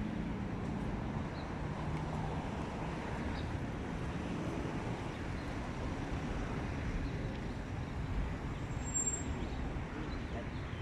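City street traffic noise: a steady low rumble of vehicles with an engine running nearby in the first few seconds, and a short high-pitched tone about nine seconds in.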